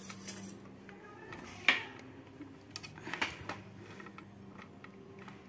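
A few faint, short knocks and clicks, about a second and a half apart, over a low steady hum in a quiet kitchen.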